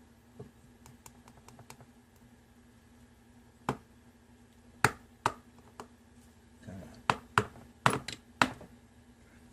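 Small metal lock parts clicking and tapping as the pins of a disassembled American 748 padlock are worked out: a few faint ticks at first, then about eight sharp clicks in the second half.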